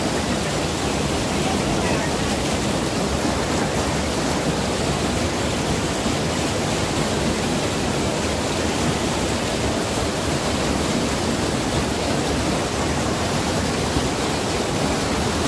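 Steady rush of fast-flowing water at a waterfall or river, an even noise that holds constant without breaks.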